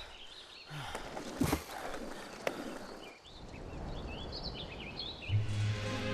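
Cartoon countryside ambience: short bird chirps over a faint background hiss, with a couple of soft knocks, and music coming in near the end.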